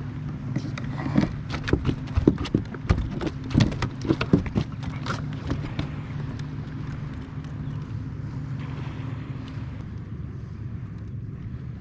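A fast, irregular run of knocks and slaps for the first five seconds or so, typical of a freshly landed redfish thrashing against a kayak. A steady low hum runs underneath throughout.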